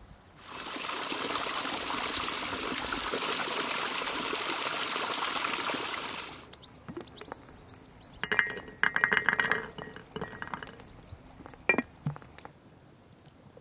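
Water pours steadily into a glass teapot for about six seconds and stops. A couple of seconds later comes a quick burst of rattling clinks against the glass, followed by a few single knocks.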